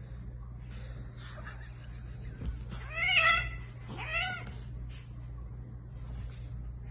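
Cat yowling twice, two drawn-out rising-then-falling calls about a second apart, during a wrestling match between two cats, over a steady low hum.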